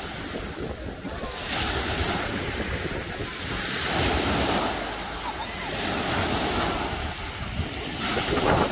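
Small waves breaking and washing up a pebble beach, swelling and ebbing about four times, with wind buffeting the microphone.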